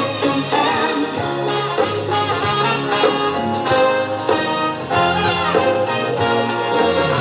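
Instrumental break of a pop song's backing track, with brass lines over a bass line that moves note by note.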